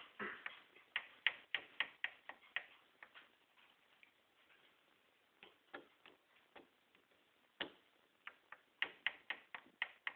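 Chicken pecking at a doggie door's flap: runs of quick, sharp taps, several a second, broken by short pauses, with a lone tap about halfway through.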